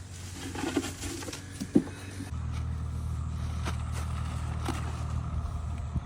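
A few knocks, then about two seconds in a steady low motor hum starts abruptly and keeps running, with occasional sharp clicks over it.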